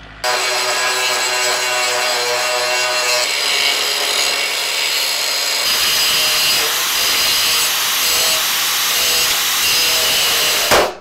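Angle grinder with a cut-off disc cutting through the top of a rusted, seized Land Rover Series 1 steering relay and its steel housing: a loud, steady whine and rasp of the disc in the metal, turning harsher about halfway through and stopping just before the end.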